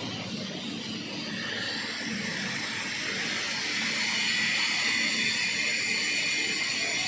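Steady hissing and buzzing of an argon (TIG) welding arc, growing a little louder about halfway through.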